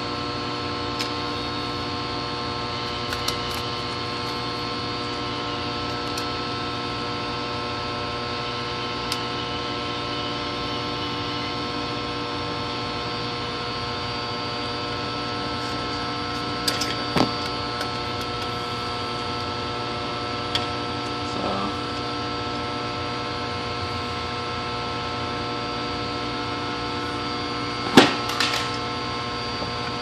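Steady electrical hum made of several constant tones, with a few light clicks and knocks from handling wires and tools close by; the loudest knock comes near the end.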